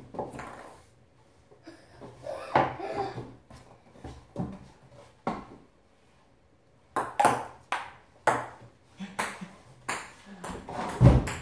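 Ping pong ball clicking on a kitchen table and off paddles during a rally: sharp ticks a second or so apart, a pause around the middle, then a quicker run of ticks. A heavier thump comes near the end.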